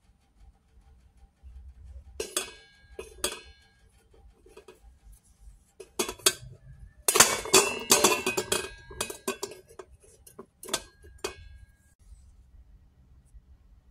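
Fingernails clicking and scraping on a stainless steel bowl as head lice are pressed and crushed against the metal, each click setting off a short metallic ring. Two clicks come in the first few seconds, a dense run of clicking and scraping about halfway through, then a few scattered clicks.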